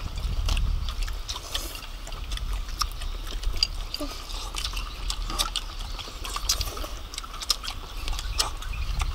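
Eating with chopsticks: scattered sharp clicks and taps of chopsticks against plates and bowls, with chewing of crispy battered fried shrimp.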